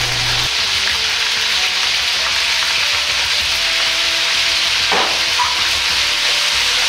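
Chikuwa and shimeji mushroom pieces coated in flour and potato starch deep-frying in 170 °C oil in a wok, just added: a steady, dense sizzle of oil bubbling around the pieces.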